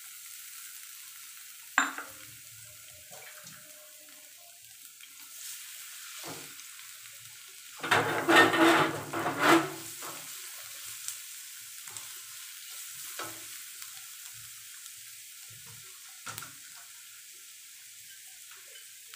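Chopped garlic sizzling softly in a little oil in a nonstick frying pan, with a spatula stirring and scraping the pan. The stirring is loudest for about two seconds near the middle, and there are a few light knocks against the pan.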